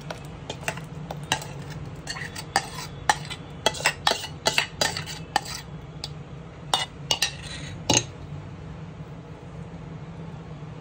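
Spinach paste being scraped out of a jar into a nonstick pan with a silicone spatula: a run of sharp clicks and knocks as the spatula and jar tap against the jar and the pan rim, then stirring of the thick gravy near the end. A steady low hum runs underneath.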